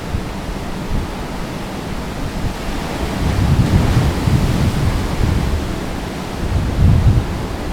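Ocean surf breaking and washing up the beach, a steady hiss, with wind rumbling on the microphone in gusts that swell about halfway through and again near the end.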